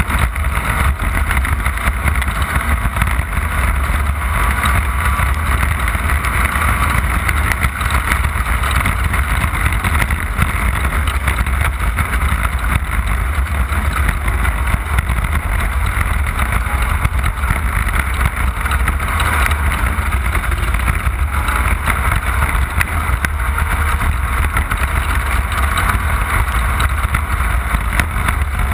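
Off-road race vehicle driving at speed over rough, wet desert terrain: steady, loud engine and drivetrain noise with a constant stream of small knocks and jolts from the chassis.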